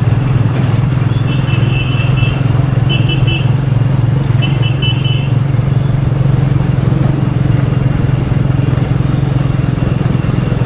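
Royal Enfield Meteor 350's single-cylinder engine running steadily under way at an easy, even pace. Short bursts of high, rapid beeping come three times in the first half.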